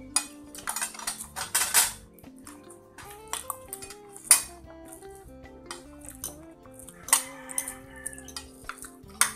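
Spoon and fork clinking and scraping against a plate during a meal, in scattered sharp clinks: a quick run of them about a second in, a single sharp one around four seconds, and more around seven seconds and near the end. Background music plays underneath.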